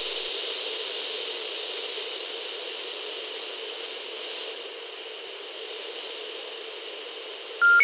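Television static hiss, steady and slowly fading. Near the end come two short electronic beeps, the second higher than the first.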